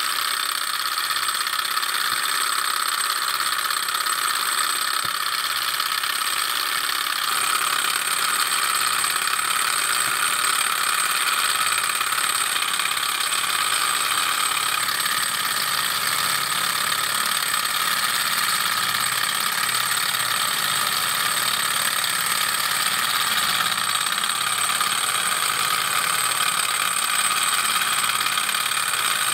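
Sunnytech two-cylinder hot-air Stirling engine running steadily now that it is hot, its pistons and flywheels turning and rubber-band belts driving the built-in generator, with a thin, steady high-pitched whine.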